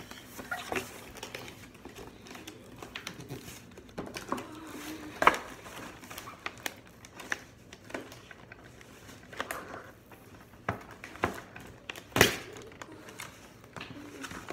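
Cardboard and plastic toy packaging being ripped open and handled: irregular crinkling and rustling with scattered sharp snaps. The loudest snaps come about five and twelve seconds in.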